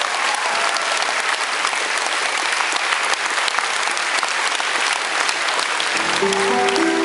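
Concert audience applauding steadily, a dense patter of many hands clapping. About six seconds in, the band comes in under it with held notes, the opening of the next song.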